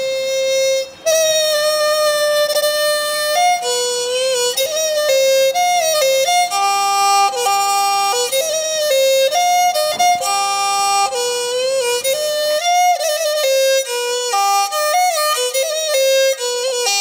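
Background music: a single bowed-string melody, violin-like, moving between held notes with sliding changes of pitch.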